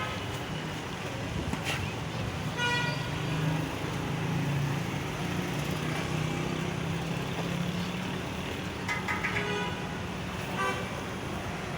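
Street traffic noise with a steady engine hum under it and a few short vehicle horn toots, near the start and twice near the end.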